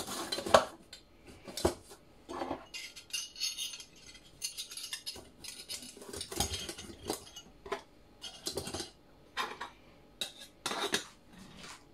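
Camping gear being packed into a stainless steel GSI kettle: repeated clinks and scrapes of metal on metal as the burner and pot-stand triangle are pushed inside. The kettle's steel lid is set on with a clink near the end.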